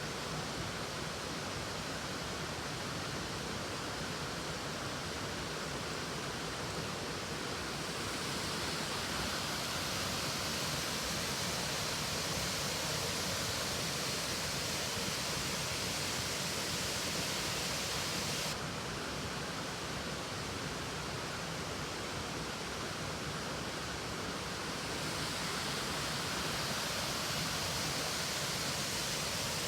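Steady rushing of a waterfall and river water. The hiss brightens about a third of the way in and drops abruptly about two-thirds through.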